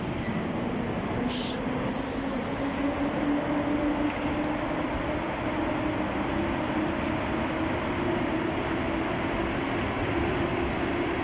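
EP07 electric locomotive pulling away with a passenger train: a steady rumble with a motor hum that rises in pitch over the first few seconds as it gathers speed, then holds steady as the coaches roll past. A brief high hiss about a second and a half in.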